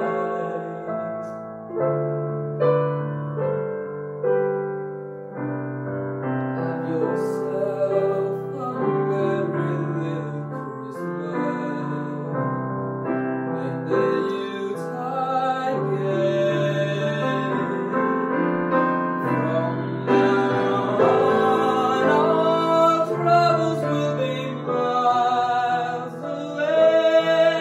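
A young man singing while accompanying himself with chords on an electronic keyboard in a piano voice. Held notes waver in a vibrato, and the singing and playing grow louder in the second half.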